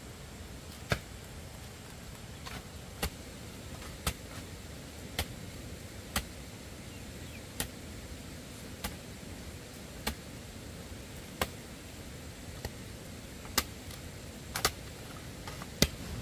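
A series of short, sharp knocks or strikes, roughly one a second, about fourteen in all, with two close together near the end, over a steady low background rumble.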